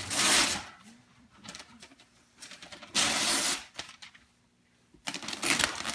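Wrapping paper being ripped off a present: two loud short tears about three seconds apart, then steady crinkling and rustling of paper from about five seconds in.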